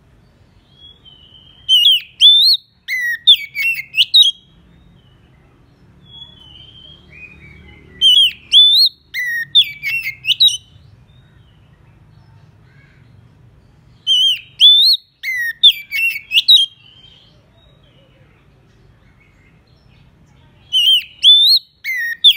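Oriental magpie-robin singing the same short phrase of loud whistled notes and quick rising and falling slurs three times, about six seconds apart, and starting it a fourth time near the end. It is the male's challenge song, calling out rival males.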